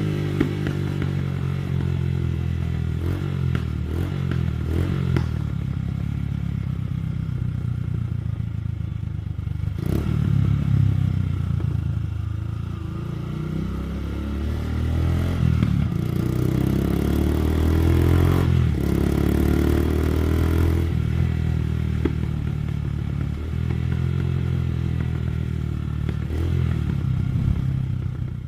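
Suzuki Gixxer 150 SF's single-cylinder engine through a modified exhaust, revving up and down, with sharp crackles and pops from the exhaust scattered through.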